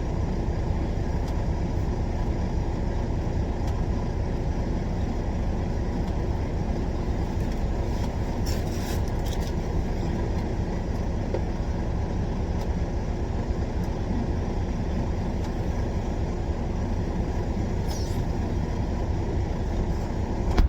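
Steady low rumble of a vehicle running, even and unchanging, cut off abruptly at the end.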